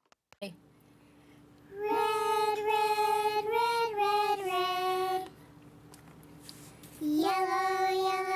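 A child's voice singing two short, simple phrases of long held notes, the first about two seconds in and the second starting near the end.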